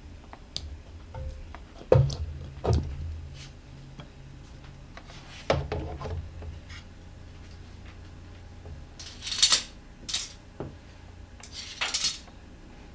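Metal hand tools clinking and clattering: a few sharp knocks, then louder rattling clatter near the end.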